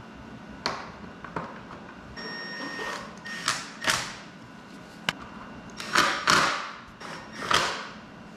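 Plastic headlight bezel on a Suzuki DRZ400 being handled and pressed into place: a series of sharp clicks and knocks with short scraping, rubbing noises between them, the loudest bunched about six seconds in.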